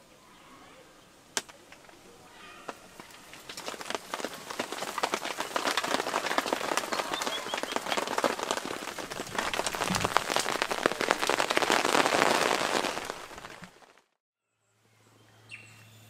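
Dense crackling and rustling noise that builds up about three seconds in and cuts off abruptly near the end.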